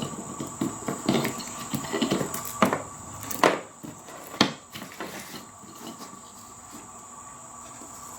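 Chainsaw chain being handled and turned over: a string of light clicks and knocks in the first half, then quieter handling.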